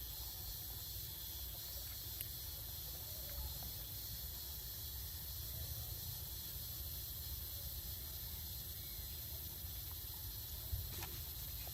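Steady high-pitched insect drone over a low rumble, with a few faint clicks, the sharpest near the end.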